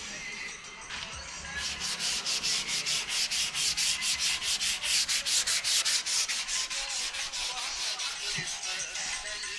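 Hand sanding: rapid, even back-and-forth strokes of abrasive paper on a hard surface, about five strokes a second, settling into a steady rhythm about a second and a half in.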